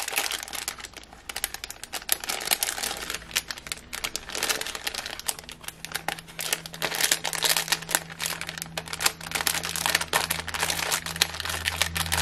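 Clear plastic packet crinkling, with die-cut cardstock pieces rustling, as hands open it and pull the shapes out. The crackling goes on throughout in quick, irregular bursts.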